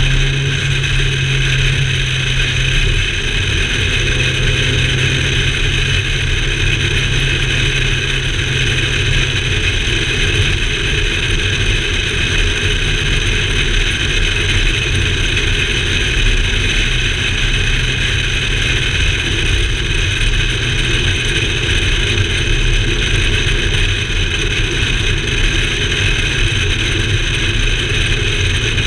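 Car driving steadily along at speed: engine and tyre noise heard by a camera mounted on the outside of the car's body, with wind on the microphone.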